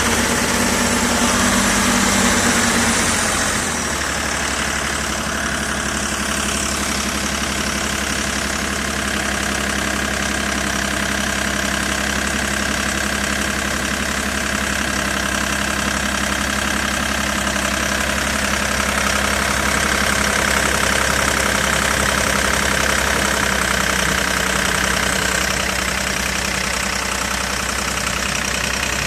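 Excavator diesel engine idling steadily. It runs slightly faster and louder for the first few seconds, then settles back at about four seconds in.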